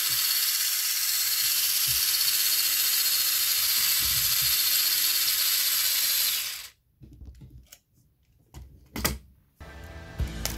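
Mini 4WD toy car's small electric motor and gears running at full speed, a steady high whine that cuts off suddenly about two-thirds of the way through, followed by a few faint clicks and a knock.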